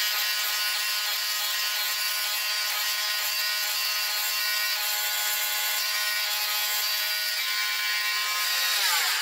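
Oscillating multi-tool with a toothed blade running steadily with a high buzzing whine, the blade held against the palm of a hand. Near the end it is switched off and its pitch falls as it winds down and stops.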